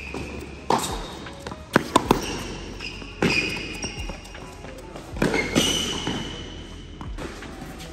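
Tennis rally on an indoor hard court: sharp pops of the racket strings striking the ball and the ball bouncing, a half-dozen hits in all. Between them come high squeaks of tennis shoes sliding on the court, each lasting about half a second to a second.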